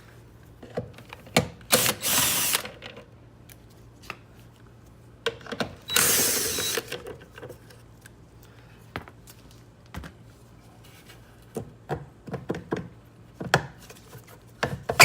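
A tool backing out the two 10 mm bolts that hold a car's tail light, in two loud bursts of about a second each, around two and six seconds in, among scattered clicks and knocks of metal and plastic being handled.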